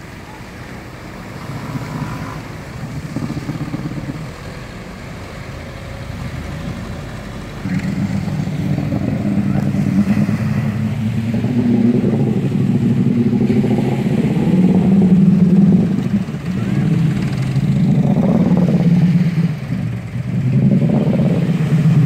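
Engine running and revving, getting louder about eight seconds in, then rising and falling in level.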